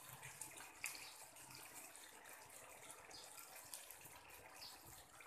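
Chicken pieces simmering in oyster sauce in a frying pan, a faint steady bubbling hiss, with a few light clicks of a wooden spatula stirring against the pan.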